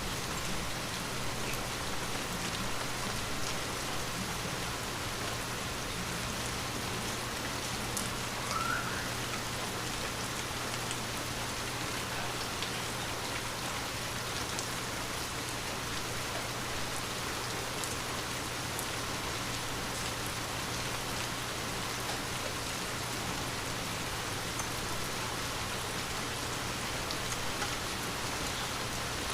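Light rain falling steadily, with scattered drops ticking on surfaces. A single brief rising chirp sounds about eight seconds in.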